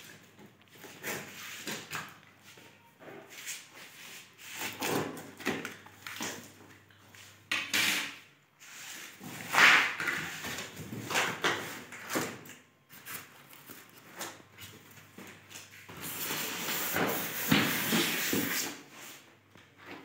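Large cardboard TV carton being opened by hand: irregular scrapes, rustles and light knocks of the cardboard flaps, with a longer stretch of rubbing near the end.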